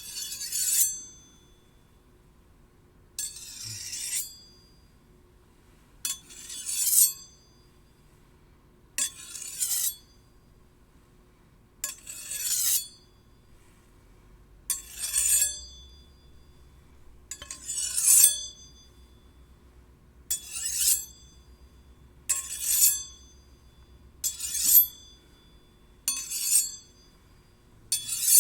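Steel blades slid along one another in repeated strokes, one every two to three seconds and coming a little faster near the end, each a high, ringing metallic scrape lasting about a second.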